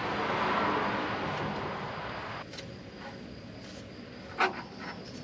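Used engine oil pouring from the oil-pan drain hole into a metal drain pan, a steady splashing hiss that drops off about two and a half seconds in. A single sharp click comes near the end as the oil filter is handled.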